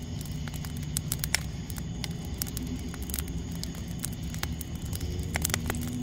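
Wood fire crackling in a mesh-screened fire pit, with frequent irregular sharp pops over a steady low hum.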